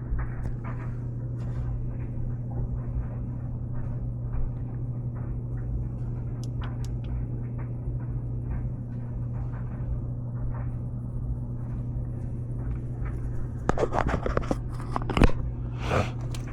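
Scattered scrapes and clicks of metal furnace parts being handled around rusted gas burners, over a steady low hum, with a few louder knocks near the end.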